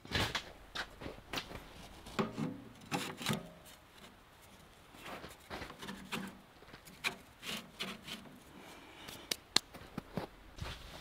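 Stovepipe being handled and fitted through a tent's stove jack: scattered scrapes, rubs and light knocks, with a few sharper clicks near the end.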